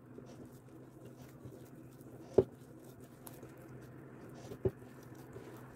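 A hand kneading and squishing flour into a wet dough mixture in a glass bowl: faint soft pattering and squelching over a low steady hum. A sharp knock sounds about two and a half seconds in, and a softer one a little before the end.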